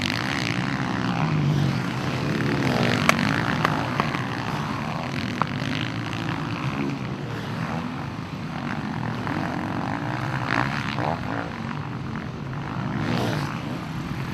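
Several supermoto motorcycle engines revving as bikes race past, their pitch rising and falling through gear changes and throttle.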